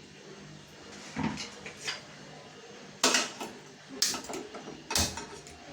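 A metal cooking pan being set on the stove and handled: several sharp clanks and knocks about a second apart.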